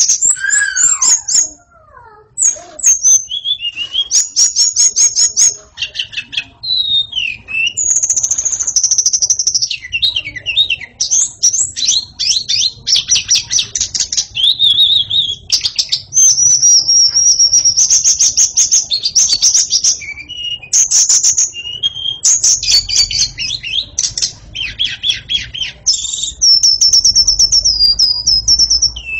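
White-rumped shama (murai batu) singing almost without pause: a long, varied song of fast trills, clear whistles and chattering phrases.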